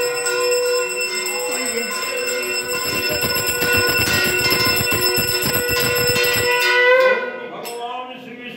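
Brass puja hand bell rung rapidly and continuously, its clapper strikes blurring into a sustained ringing that stops about three-quarters of the way through. A priest's voice chanting mantras takes over near the end.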